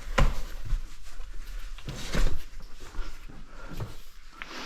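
Irregular scuffs and knocks of people clambering back down over cave rock, the loudest about two seconds in.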